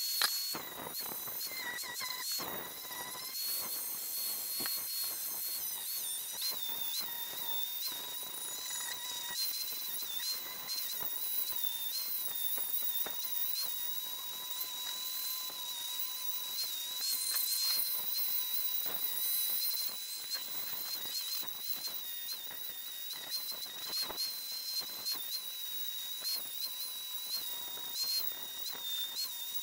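Angle grinder with a polishing wheel running on a cast bronze sword blade: a steady high-pitched whine that dips briefly again and again as the wheel is pressed against the metal.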